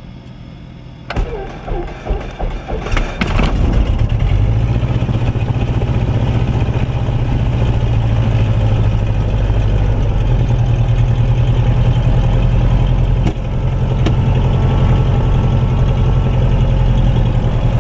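Cessna 172RG's four-cylinder Lycoming aircraft engine being started from cold: the starter cranks it from about a second in, it fires unevenly for a couple of seconds, then catches and settles into a steady idle, heard from inside the cockpit. Its level dips briefly about 13 seconds in.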